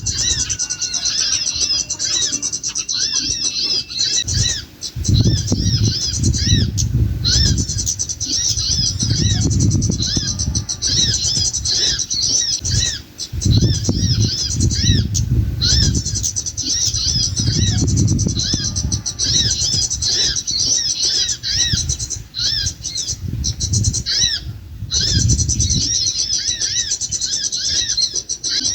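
A dense run of rapid, high-pitched bird chirps, repeating almost without pause and breaking off briefly a few times: a bird-trapping lure call. Under it, bouts of low rumbling come and go.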